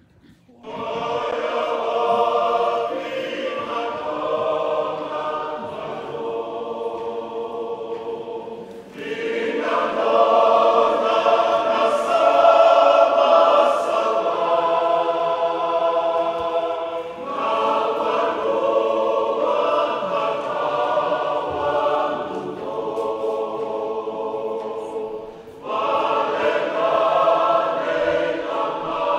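Choir singing a hymn, in long phrases broken by brief pauses about every eight seconds.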